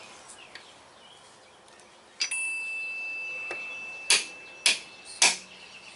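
Hammer tapping on the rusted steel clevis of a truck brake chamber pushrod, set on a socket, to break it loose: four sharp metal strikes. The first leaves a long high metallic ring that fades slowly, and the last three come about half a second apart near the end.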